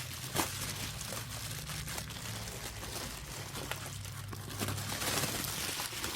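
Packaging rustling and crinkling as a doll's box is handled and opened, with scattered light clicks, over a low steady hum that fades out about five seconds in.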